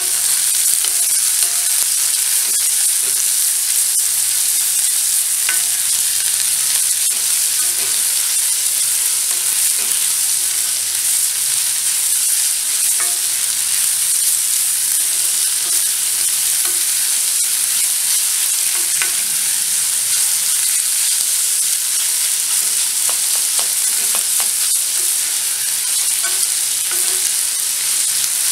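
Sliced onions steadily sizzling as they fry in an iron kadai, turned over with a wooden spatula that scrapes against the pan now and then.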